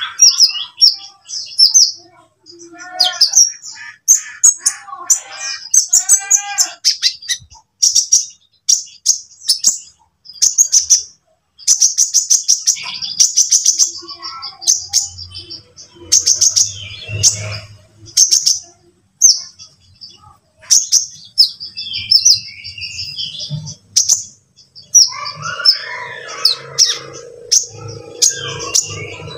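Sunbird (kolibri ninja) singing: rapid, high-pitched chirps and short trills repeated over and over, with a few lower warbled notes about three to seven seconds in. A low steady hum joins near the end.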